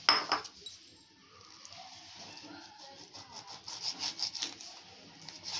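Kitchen knife slicing raw chicken breast on a wooden chopping board: a sharp knock at the very start, then soft rubbing and scraping strokes of the blade through the meat and against the board, several close together about four seconds in.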